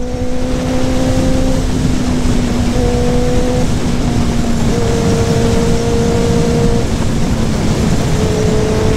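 Benelli motorcycle engine running at a steady cruise under the rider, a constant hum with a second, higher hum that fades and returns a few times, over heavy wind rumble on the helmet microphone.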